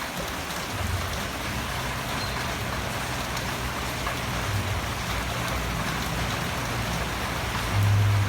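Steady rain falling, with a low hum underneath from about a second in that gets louder near the end.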